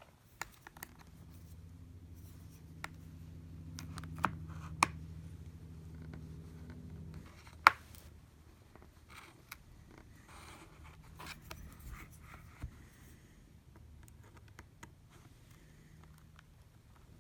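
Prying picks and small tools clicking and scraping against the glass and frame of a first-generation iPad mini during a screen removal, with one sharp click a little after the middle. A low hum runs for the first several seconds and stops suddenly.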